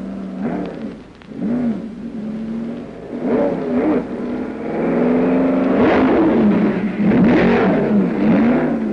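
BRM racing car's supercharged V16 engine revving, its pitch sweeping up and down again and again. It gets louder and busier after about five seconds. The engine sounds healthy.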